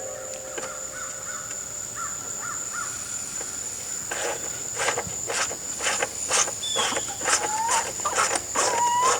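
A bird calling outdoors: a run of short, sharp calls several times a second starting about four seconds in. A steady high insect trill runs underneath.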